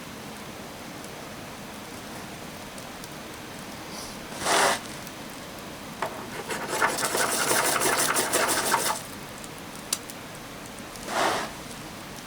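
Striker scraping along a large ferrocerium rod (a 6-inch, half-inch-thick firesteel). One scrape comes about four seconds in, then a fast run of scrapes for about three seconds, then another single scrape near the end, over a steady hiss.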